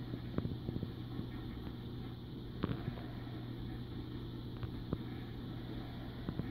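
Steady low hum of a reef aquarium's running pumps and circulation, with a few short clicks scattered through it.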